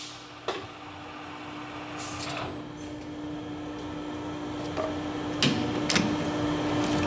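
Metal lathe after a cut, with a steady machine hum underneath, while the chuck is worked by hand to release a finished bushing: a few sharp metal clicks and knocks, about a second in, near two seconds, and two close together near the end.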